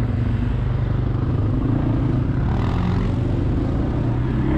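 Quad bike (ATV) engine running at low, steady revs while riding slowly on a dirt track, picking up a little about halfway through.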